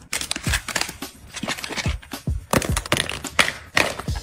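Plastic packaging crinkling and small bottles and tubes knocking softly as they are handled and packed into a cosmetic pouch, in a quick, irregular run of crackles and taps.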